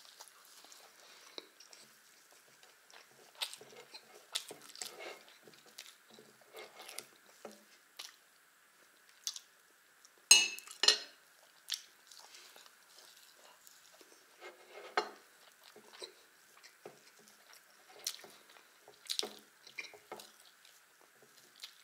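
Close-up eating sounds of a pancake with strawberry jam being chewed, with a metal spoon clinking and scraping on a ceramic plate and saucer. Two sharp clinks a little after ten seconds in are the loudest, over a faint steady hum.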